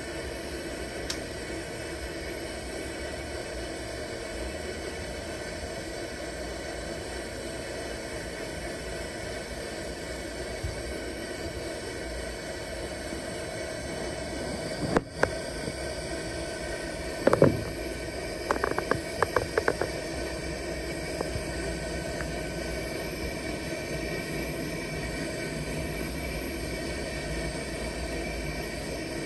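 Burner of a vintage Preway P4521 pressurized camp stove running with a steady hiss under a lidded saucepan of water. About halfway through there is a sharp click, then a thump and a quick run of clicks.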